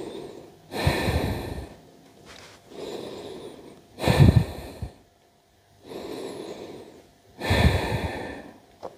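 A yoga instructor's slow, deep, audible breathing, held in puppy pose. There are three breaths about three and a half seconds apart, each a softer stretch followed by a louder, sharper one.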